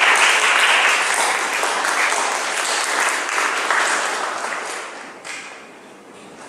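Audience applauding, then dying away near the end with a last stray clap.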